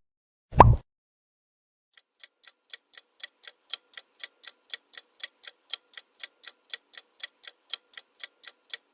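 A single short pop sound effect, then a clock-style countdown timer ticking about four times a second, starting faint and getting louder, while the quiz question is open.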